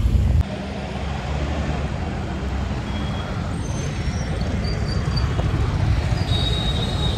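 Steady street traffic noise from passing vehicles. A low rumble cuts off suddenly about half a second in, and faint high tones come through in the second half.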